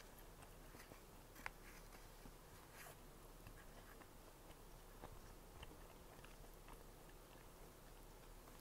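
Faint close-miked chewing of a doughnut: scattered small, soft mouth clicks, with one sharper click about a second and a half in.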